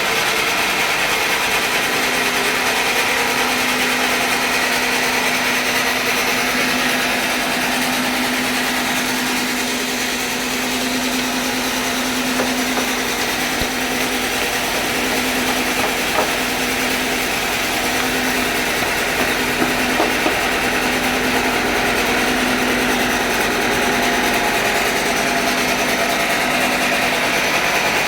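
Sawmill machinery running steadily: a continuous engine-like drone with a held hum and a constant hiss, with a few faint ticks partway through.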